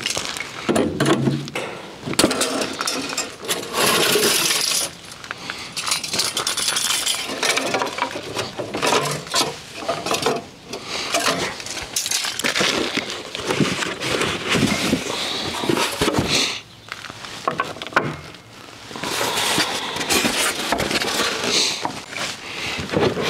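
Metallic clinking and clattering as hydraulic hoses and their steel fittings are handled against the steel frame of a loader-mounted auger.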